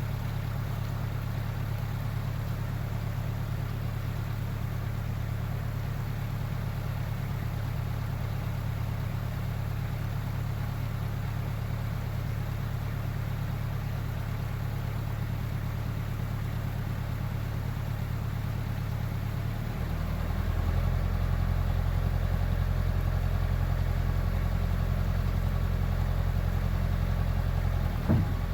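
Heavy equipment engine running steadily. About two-thirds of the way through, its note drops and it gets louder, and a short knock comes near the end.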